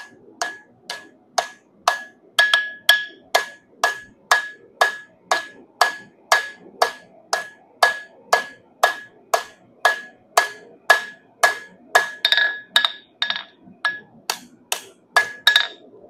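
Hand hammer striking 3/8-inch round bar on an anvil at a steady pace of a little over two blows a second, each blow leaving a short ring at the same pitch, as the bar is forged into a rose stem. The hammering stops just before the end.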